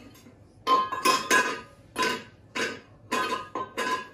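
A cat pawing a small metal bowl on the floor, the bowl clanking and ringing over and over, starting about half a second in, with two or three clinks a second.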